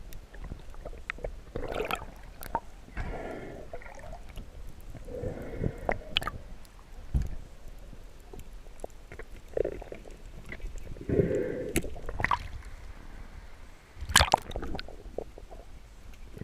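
Water sloshing and gurgling around a camera at the water's surface, coming in irregular muffled swells, with scattered sharp clicks and knocks; the loudest swell comes near the end.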